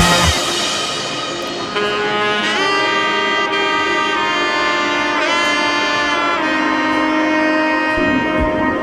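Background music with a held, bending lead melody on a saxophone-like horn.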